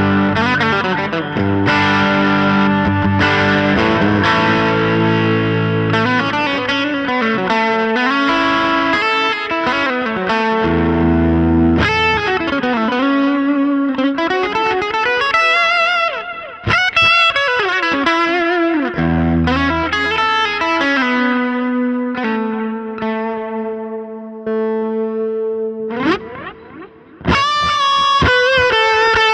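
Gretsch G5421 Jet Club electric guitar played through a Line 6 HX Stomp effects processor. It plays a mix of chords and single-note lines with several string bends and long held notes. Near the end the sound briefly dies away before fresh, bright picked notes come in.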